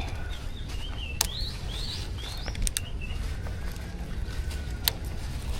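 A small bird chirping a quick run of short up-and-down notes for about two and a half seconds, with a few sharp clicks in between and a steady low rumble underneath.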